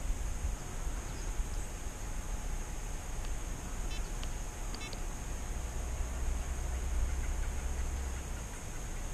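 Wind rumbling on the microphone outdoors, over a steady high-pitched hum, with a couple of faint short high chirps about four and five seconds in.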